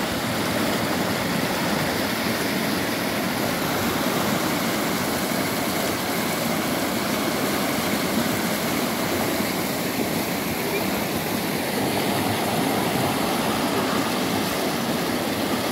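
River water rushing steadily over shallow rapids: a continuous, even roar of whitewater.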